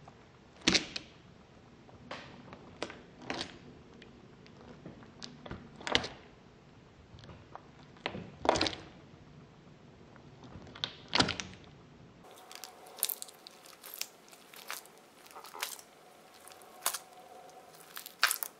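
Homemade balloon stress ball being pressed and squeezed by hand, giving quiet, irregular crunching clicks from its putty filling with small seashells inside. The clicks come more often in the last few seconds.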